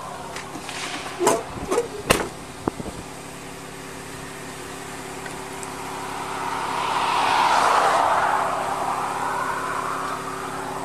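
A few sharp clicks and knocks from the patrol car's door as it is opened and shut. Then a vehicle passes on the highway, its engine and tyre noise swelling and fading.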